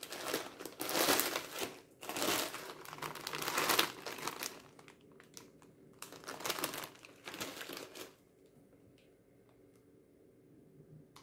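Plastic bag of dried bean vermicelli (glass noodles) crinkling loudly as it is picked up and handled. The crinkling comes in irregular bouts and stops about eight seconds in.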